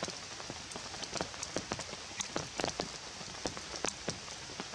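Rain falling steadily, with individual drops ticking sharply at irregular moments over the hiss.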